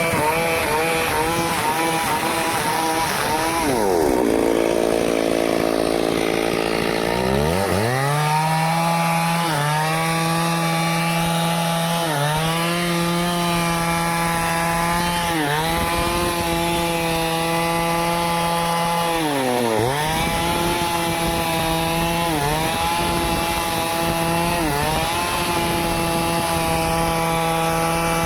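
Stihl two-stroke chainsaw cutting wood. The engine falls to a low idle about four seconds in and revs back up at about seven seconds. It then runs at high speed, its pitch dipping briefly every few seconds as the chain bogs in the cut and recovers.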